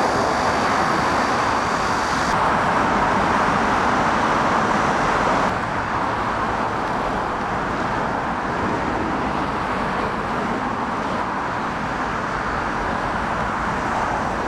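Steady road traffic noise as cars speed past on a multi-lane road, a little quieter from about five and a half seconds in.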